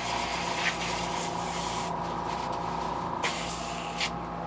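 Airbrush spraying paint in two bursts of hiss, the first about two seconds long, the second shorter about three seconds in, over a steady background hum.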